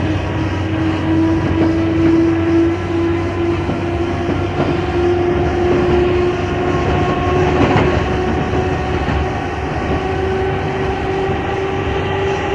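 British Rail Class 310 electric multiple unit running and gathering speed, its traction motor whine climbing slowly and steadily over the running rumble, with a few faint clicks of wheels over rail joints.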